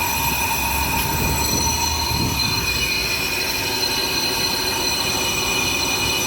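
Brake lathe skimming a brake drum or disc: the cutting tool on the turning metal gives a steady, high, ringing squeal made of several tones, over the machine's running noise.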